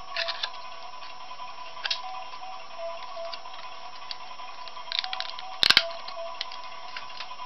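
Quiet background music with a steady, repeating melody, over sharp crinkles and clicks of a thin clear plastic toy bag being handled. The loudest crackle comes about five and a half seconds in.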